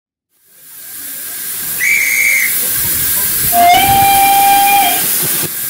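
Steam locomotive blowing off steam with a loud, steady hiss that swells in over the first second or so, and two whistle blasts: a short high toot about two seconds in, then a longer, lower whistle lasting over a second.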